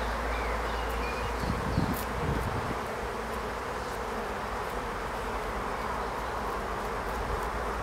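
Honeybees buzzing steadily in and over an opened hive, the colony's frames exposed during an inspection.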